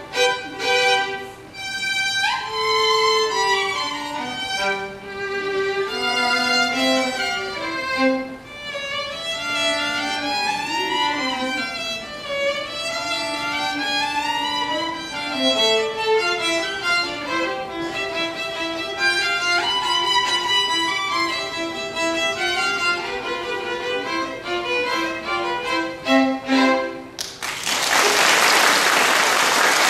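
Two violins playing a duet, with quick rising scale runs. The piece ends about 27 seconds in, and the audience then applauds.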